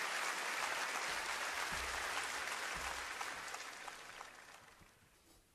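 Audience applause, dying away steadily over about five seconds.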